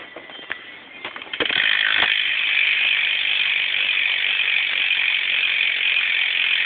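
Stolen Roulette BMX rear hub with a 9-tooth driver freewheeling as the rear wheel is spun: a few separate clicks, then from about a second and a half in a fast, continuous ratcheting buzz from the hub's pawls.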